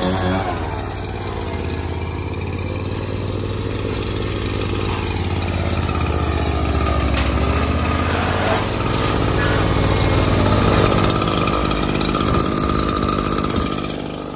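Small engines running steadily: a SCAG zero-turn mower's engine with a deep hum and a Maruyama BL-9000 two-stroke backpack blower idling. The deep hum fades a little over halfway through, leaving the higher, buzzier blower idle.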